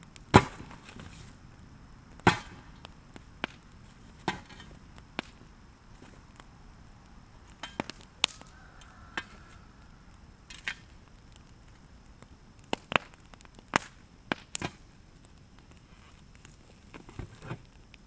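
Sharp, irregular knocks and cracks of a long-handled tool striking burning pallet wood, about a dozen blows in all. The two loudest come in the first few seconds and a quick cluster follows later.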